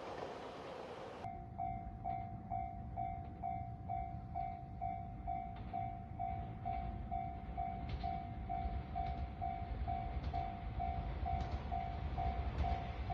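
A Japanese level-crossing warning bell ringing in an even, quick series of electronic dings, about two to three a second, with the low rumble of a train building up under it toward the end. Before that, about a second in, passing-train noise cuts off abruptly.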